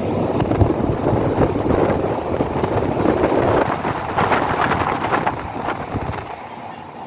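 Vintage Roslagsbanan train running along the track, heard at an open carriage window: a steady rumble of wheels and running gear with wind buffeting the microphone, rattling harder between about four and six seconds in and easing off near the end.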